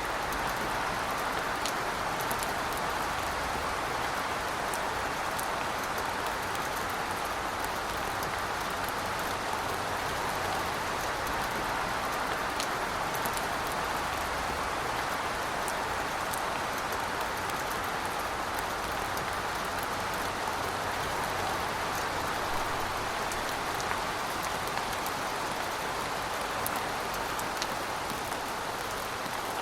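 Steady rain falling, with an even hiss and scattered faint drop ticks.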